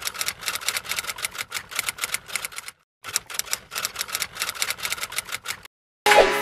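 Typing sound effect: rapid key clicks in two runs, with a short break a little before halfway, timed to on-screen text being typed out letter by letter. Music starts right at the end.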